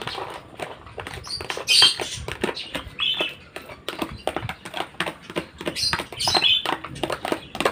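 A spoon taps and scrapes chopped carrots and corn out of a plastic tub into a plastic basin, making irregular light clicks and taps. Several short, high, squeaky chirps from caged lovebirds cut in, loudest about two seconds in and again near six seconds.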